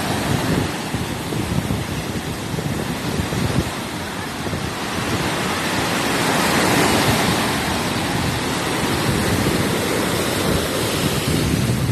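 Ocean surf breaking and washing onto a beach, a continuous rush of water that swells up about six seconds in.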